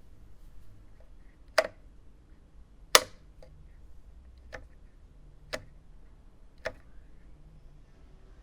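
A light switch flicked on and off: five sharp clicks about a second to a second and a half apart, the second one the loudest, over a faint background hiss.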